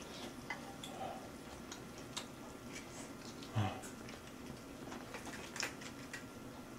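A person chewing grilled beef quietly, with scattered faint clicks and ticks from the mouth and chopsticks. A short low hum from the eater comes about three and a half seconds in.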